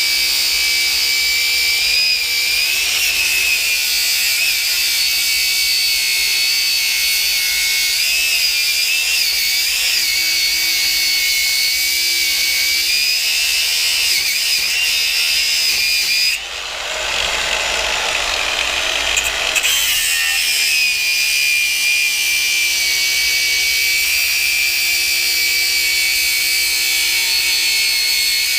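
Angle grinder running at a steady high-pitched whine as it cuts through the copper windings of an electric motor. About two-thirds of the way through, the whine drops out for roughly three seconds and a rougher grinding noise takes over, then the steady whine returns.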